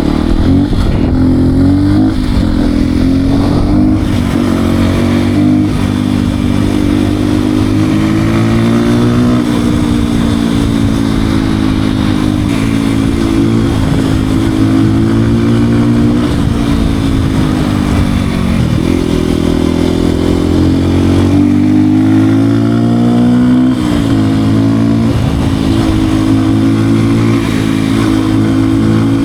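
Beta RR 125 R supermoto's 125 cc single-cylinder engine running steadily, its pitch climbing and falling back a few times as the throttle is opened and eased, most clearly about a third and two-thirds of the way through.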